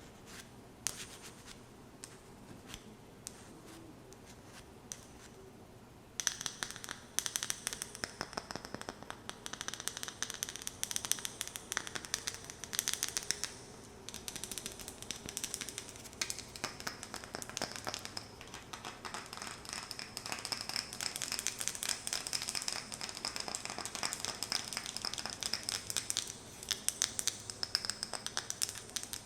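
Fingernails working a wooden lid: a few light, scattered taps, then from about six seconds in, fast, continuous scratching and tapping.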